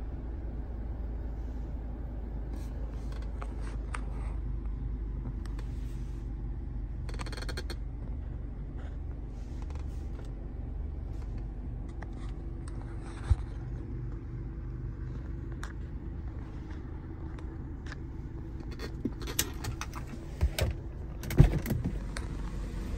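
Jaguar F-PACE's 2.0-litre turbocharged four-cylinder engine idling, a steady low hum inside the cabin. Scattered light clicks and handling knocks, with a cluster of sharper knocks near the end.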